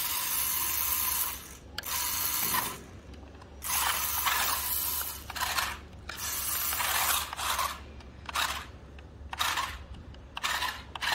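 Toy radio-controlled rock crawler's electric motor and gearbox whirring in repeated bursts as the throttle is pulsed while it climbs a small hump: longer runs in the first half, short blips near the end.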